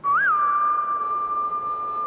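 A single high, whistle-like note that bends up briefly just after it starts, then holds steady. It opens a music cue.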